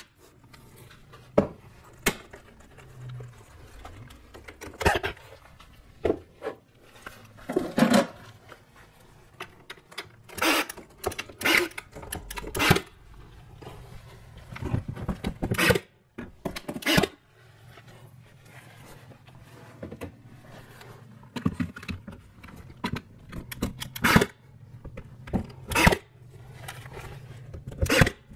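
Irregular light knocks, taps and scrapes of wooden window-frame pieces being handled and fitted around a glass pane, over a faint low hum.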